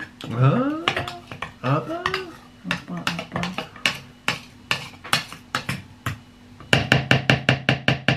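Metal spoon clinking and scraping against the glass bowl of an electric food chopper, ending in a quick run of taps near the end; the chopper's motor is not running. In the first two seconds a man's voice makes two rising, drawn-out playful calls.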